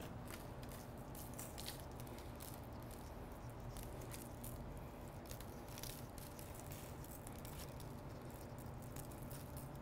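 Coarse kosher salt sprinkled by hand onto raw beef short ribs: a faint, scattered patter of grains over a low steady hum.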